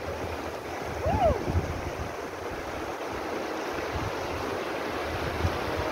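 Fast mountain stream rushing over rocks, a steady rush of water, with wind buffeting the microphone. A brief rising-and-falling tone sounds about a second in.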